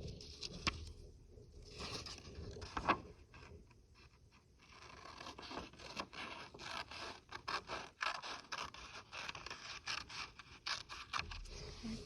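Scissors cutting paper: quick snips with paper scraping. A few at first, then a steady run of short, rapid cuts from about five seconds in.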